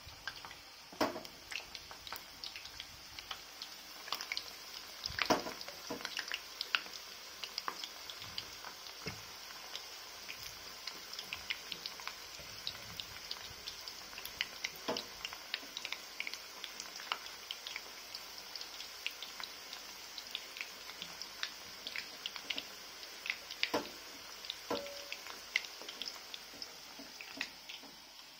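Marinated, cornflour-coated chicken lollipops deep-frying in hot oil in a pan: a steady sizzle with frequent scattered crackles and pops.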